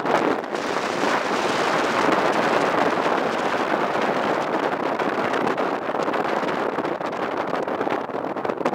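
Steady rushing of wind and sea past a moving cruise ship, with wind buffeting the microphone.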